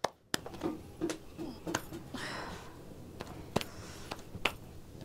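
Quiet room tone with a few scattered sharp clicks and faint voices in the background.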